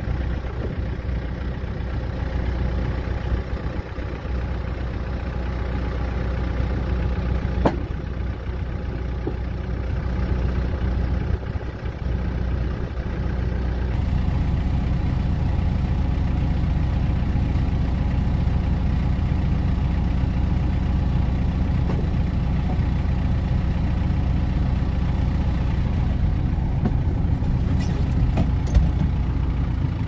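Compact tractor's engine idling steadily, with a single sharp knock about 8 seconds in and a few light clinks near the end.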